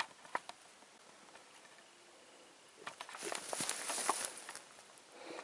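A couple of light clicks, then a quiet stretch, then about two seconds of rustling and footsteps in tall grass starting about three seconds in.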